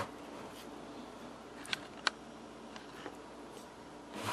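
Quiet room tone with a few light clicks: two sharper ones about two seconds in, then a couple of fainter ticks.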